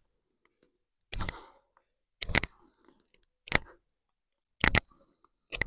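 Small Cudeman Sanabria 2 bushcraft knife carving a point onto a wooden stick: five short shaving strokes about a second apart, the blade biting into the wood.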